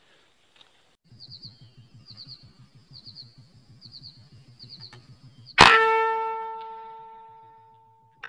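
Air rifle shot about five and a half seconds in: a sudden sharp crack followed by a pitched metallic ringing that dies away over about two and a half seconds. Before it, faint high chirps repeat about once a second over a low pulsing.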